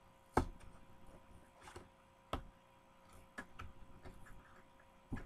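Plastic blister and card backing of a Hot Wheels package clicking and crackling as it is pried and torn open by hand. A sharp click comes about half a second in and another a little over two seconds in, with softer crinkles in between.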